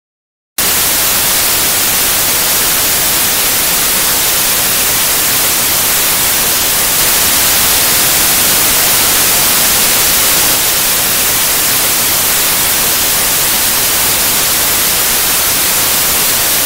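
Loud, steady static hiss like white noise, brightest in the treble, starting abruptly about half a second in after dead silence.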